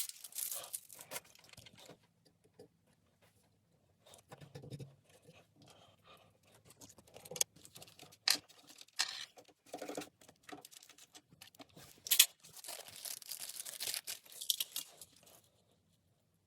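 Small computer-case parts and packaging being handled: scattered clicks and light rattles, with stretches of rustling and a short lull about two seconds in.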